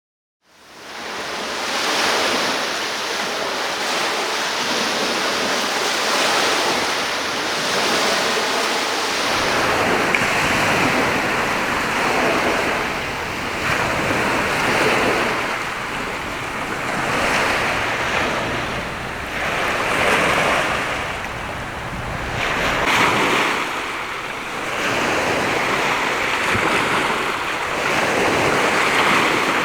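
Sea waves washing onto the shore, fading in and then swelling and ebbing every few seconds. From about a third of the way in, wind buffets the microphone with a low rumble.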